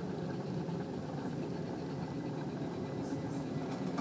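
Steady low rumble and hum of airport ambience heard from inside the terminal, through the window glass.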